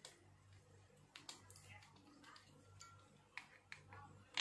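Faint, scattered clicks and taps of a bipod's rail clamp being fitted onto an air rifle's 22 mm rail, with a sharper click near the end.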